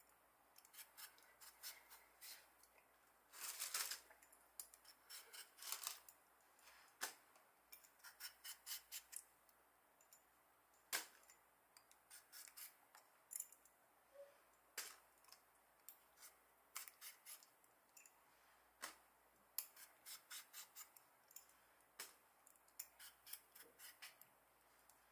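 A potato being peeled by hand, with the blade scraping off the skin in short, quick strokes that come in runs with brief pauses between them.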